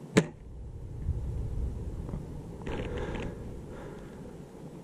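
A single shot from a Novritch SSG24 spring-powered bolt-action airsoft sniper rifle, a sharp snap just after the start, followed by a short rustling clatter of handling about three seconds in.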